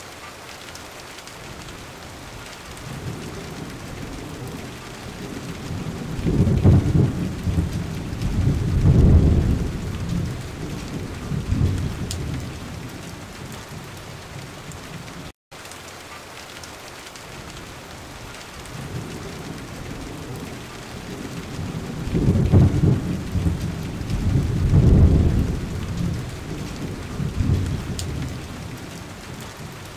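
Rain-and-thunder ambience track: steady rain with a long low rolling rumble of thunder swelling twice. The track drops out for an instant midway and the same stretch repeats, as a looped recording does.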